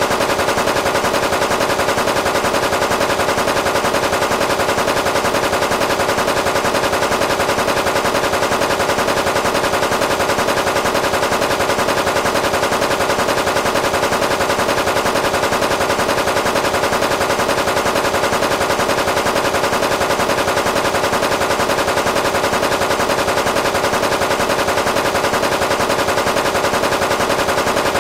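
Cartoon machine-gun sound effect: steady, unbroken rapid fire.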